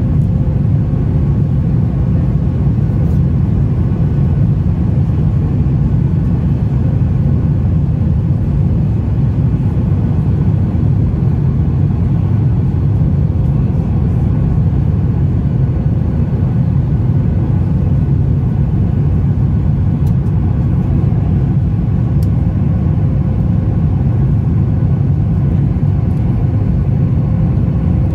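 Boeing 737 MAX 8's CFM LEAP-1B engines heard from inside the cabin, over the wing, as the jet lifts off and climbs: a loud, steady, deep rumble with a faint steady hum above it.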